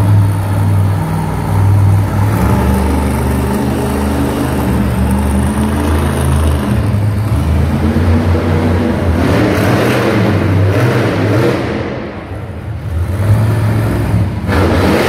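Monster truck's supercharged V8 engine running loud and revving as the truck drives across the dirt floor, easing off briefly near the end and then revving back up.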